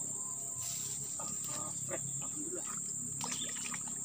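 Steady high-pitched chorus of insects, with scattered clicks and rustles of a rod and line being handled.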